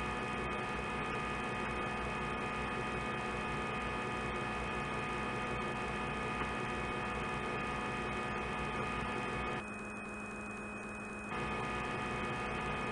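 Steady hum of a CNC lathe spindle running through a turning cycle while the tool takes a 2 mm cut, made of several fixed tones. The upper and lower tones drop out for a moment near the end, then return.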